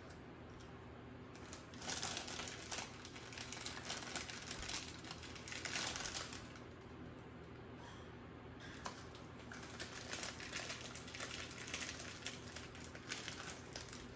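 Plastic potato-chip bag crinkling and rustling as a hand digs into it for chips, mixed with the crunch of chips being eaten. It comes in several crackly bouts.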